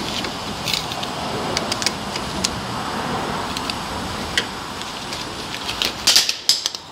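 Socket ratchet clicking and small metal clinks as a brake caliper bolt is tightened, its spinning end held with pliers, over a steady rushing background noise. A burst of louder clanks comes near the end.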